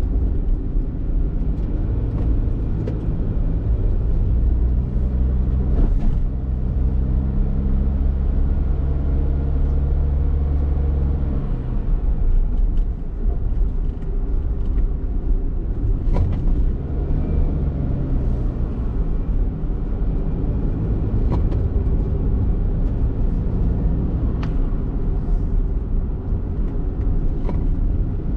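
Honda kei car on the move, its engine and road noise making a steady rumble. The engine note rises and holds for several seconds, drops about eleven seconds in, and climbs again around seventeen seconds, with a few brief knocks along the way.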